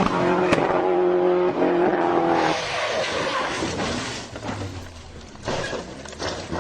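Rally car engine held at steady high revs, cutting off abruptly about two and a half seconds in, leaving quieter noise and a low hum.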